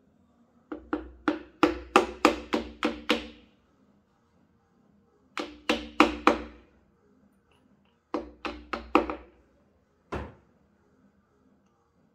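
Pistons being tapped down into the BMW S54's cylinder bores: a run of about eight sharp knocks, then two runs of four, and a single knock near the end, each with a short ringing tail.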